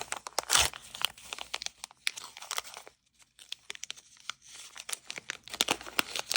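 Small crinkly wrapper being torn open and crumpled by hand to unpack a miniature toy, a rapid crackle with a louder rip about half a second in and a short pause around three seconds.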